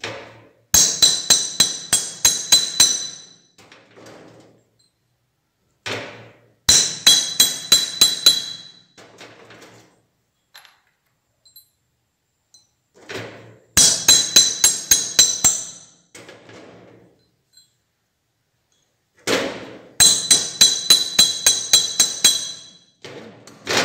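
Hammer striking a steel plate laid over a copper or brass ring on an anvil, flattening the ring. It comes in four bursts a few seconds apart, each of about eight to ten quick strikes that ring brightly off the steel, with light clinks of handling in between.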